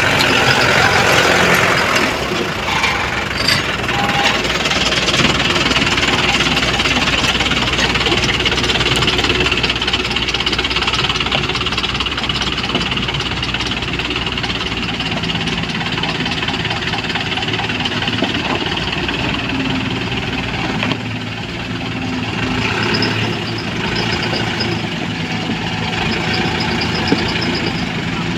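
Komatsu PC75UU mini excavator's diesel engine running steadily as the machine digs and loads.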